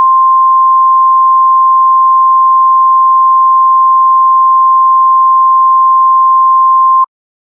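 Emergency-broadcast attention tone: one loud, steady, unwavering high tone that cuts off abruptly about seven seconds in.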